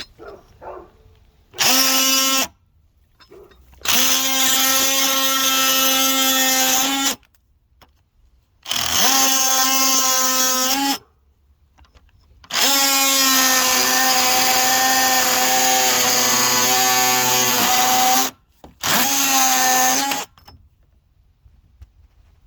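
Oscillating multitool with a carbide-tipped blade cutting off finish nails, run in five bursts of one to six seconds with short pauses between. Each burst is a steady high buzz whose pitch rises as it starts.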